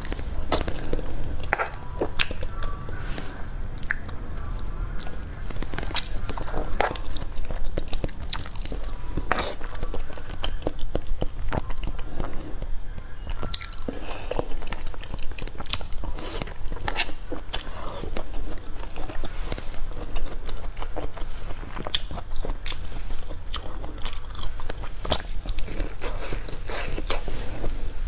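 Close-miked eating: irregular crisp bites and chewing of food such as broccoli florets, picked up by a clip-on microphone at the eater's collar.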